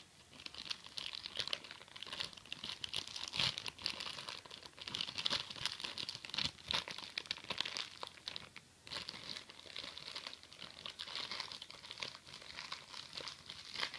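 Plastic packaging of a phone charger and cable being handled and pried open: continuous irregular crackling.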